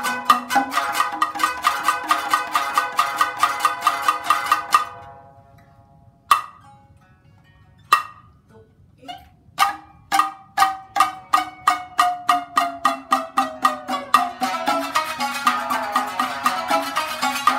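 Nagauta shamisen ensemble plucked in unison with bachi plectrums: a fast, even run of notes breaks off just under five seconds in. After a near-silent pause broken by two single strokes, the notes return slowly and speed up into another fast passage.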